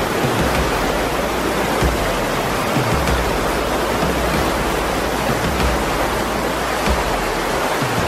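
Waterfall cascading over rocks into a pool: a steady, even rush of falling water.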